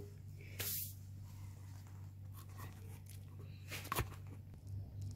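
Quiet handling of a food-prep bowl: a few faint rustles and light ticks as a gloved hand works curry paste into raw chicken pieces in a stainless steel bowl, over a steady low hum.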